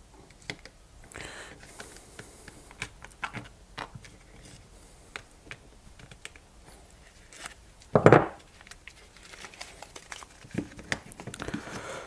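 Stiff birch bark strips crinkling and rustling as they are pulled and tucked with a multitool's pliers, with scattered small clicks. One louder thump comes about two-thirds of the way through.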